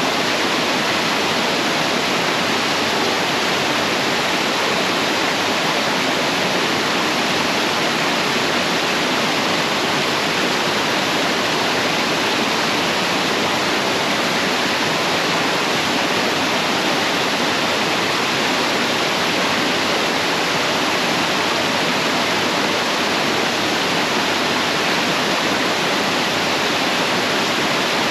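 Small mountain waterfall with water pouring steadily onto rocks: an even, unbroken rush of white water.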